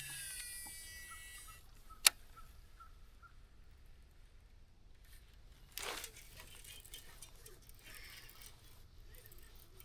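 A cast with a fishing reel: line whizzes off the spool with a falling pitch for about a second and a half, then a single sharp click about two seconds in as the reel is re-engaged. A short rustle follows near six seconds.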